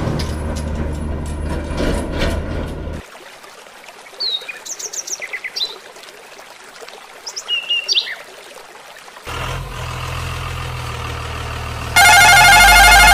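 Model dump truck splashing through muddy water, then birds chirping over a quiet rush of stream water. About 9 seconds in, a steady low truck engine hum begins, and near the end a loud horn blast lasts about a second.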